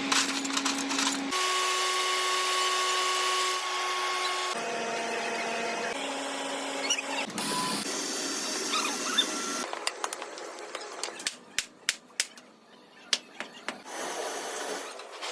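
Metalworking machine tools running: a series of steady motor whines, each at a different pitch and switching abruptly every few seconds, followed by a run of sharp separate metal clicks and taps near the end.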